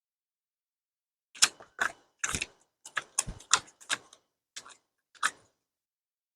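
Handling clatter of saw parts: about ten sharp clicks and knocks at uneven spacing, starting about a second in and stopping near the end.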